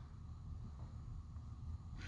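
Quiet room tone with a low, uneven rumble and no distinct events.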